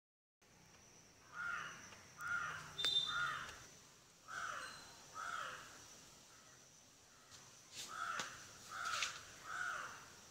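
A bird giving short calls in runs: three, then two, then three, each about half a second long. Behind them is a faint steady high-pitched insect buzz.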